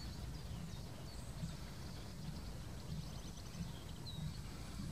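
Distant steam locomotive exhaust: slow, low, soft chuffs roughly every two-thirds of a second as the engine works at low speed, with faint birdsong above.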